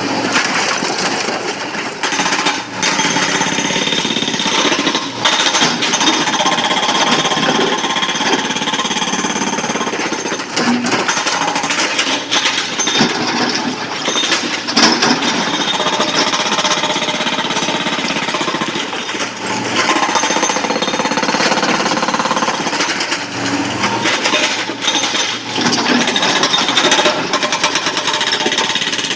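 Hydraulic rock breaker on a SANY crawler excavator hammering quarry stone: a fast, continuous rattle of chisel blows with a few brief breaks.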